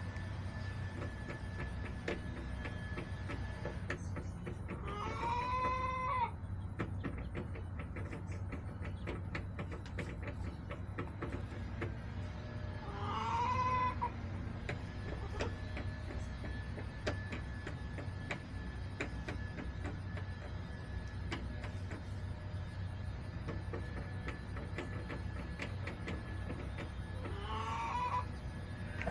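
Backyard chickens calling: three long, drawn-out, pitched calls a few seconds apart, each lasting about a second and a half, with scattered light clicks and a steady low hum underneath.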